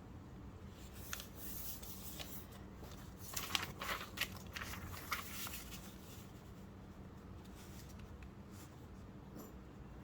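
Sheets of paper handled and folded in half by hand: rustling and crisp crinkles with a few sharp taps, busiest in the first half, then softer.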